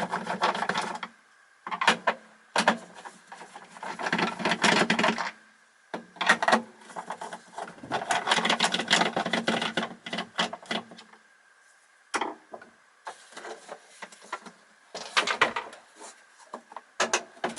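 Screws being undone by hand with a screwdriver: a series of rasping, clicking turning bursts, some a few seconds long and some brief, with short pauses between them.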